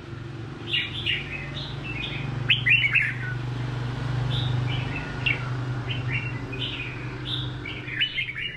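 Red-whiskered bulbul singing, a string of short chirped and warbled phrases, over a steady low hum.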